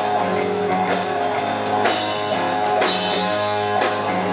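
Rock band playing an instrumental stretch: guitar chords over a drum kit keeping a steady beat, about one hit a second.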